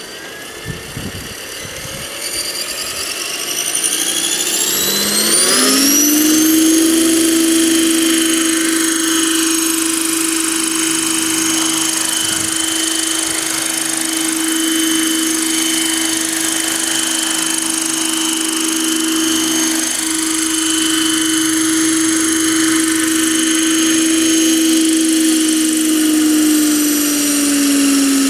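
Electric-converted scale RC helicopter (Bell 206 Jet Ranger on Century 30 mechanics) spooling up with a rising whine over the first six seconds. It then runs steadily at flying speed with a high-pitched motor and gear whine over the rotor hum. The pitch drops slightly near the end as the rotor slows after landing.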